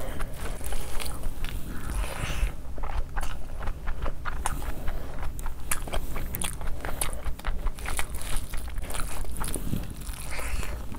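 Close-miked chewing of a mouthful of spicy chicken 65 fried rice eaten by hand: a quick run of sharp, wet mouth clicks and smacks.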